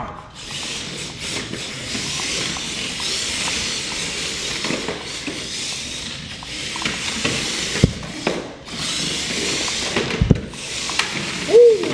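Two Air Hogs Hyper Tracks remote-control tracked toy vehicles driving on a hardwood floor: the steady, high-pitched whir of their small electric motors and plastic tracks, dipping briefly a few times, with two sharp knocks about eight and ten seconds in.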